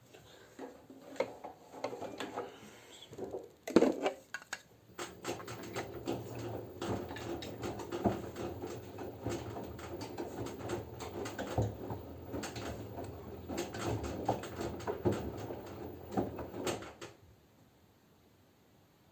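LG F10B9LD front-loading washing machine in its wash phase: the drum turns and the wet laundry tumbles with irregular knocks and sloshing over a low motor hum. One louder knock comes about four seconds in, and the drum stops about three-quarters of the way through.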